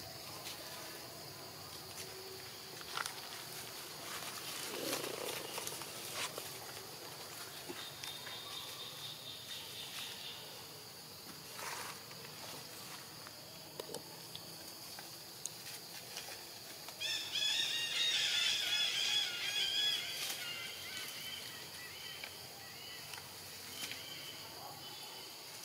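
Insects droning steadily in one high, even tone. Past the middle comes the loudest sound: about three seconds of high, quickly repeated squealing animal calls.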